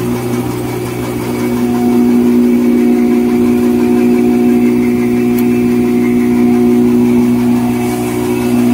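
High-speed 5-line N-fold hand towel paper machine running: a steady mechanical hum with a constant low drone, getting a little louder about two seconds in.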